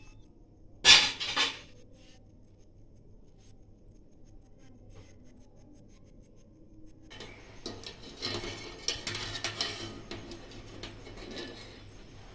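Metal utensil clinking and scraping against a steel pot of sugar syrup: one sharp clank about a second in, then a run of quicker clinks and scrapes from about seven seconds on.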